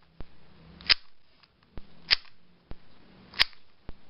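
Magnetic Weilong GTS2 M speedcube being turned, its layers snapping into place with sharp clicks about once a second and fainter clicks between, as its corner cutting is tested.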